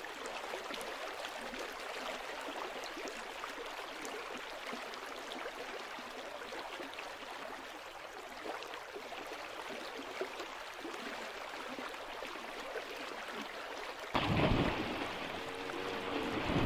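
Steady rushing of river water, then, about fourteen seconds in, sudden loud, heavy splashing as a crocodile lunges at a deer wading in the river.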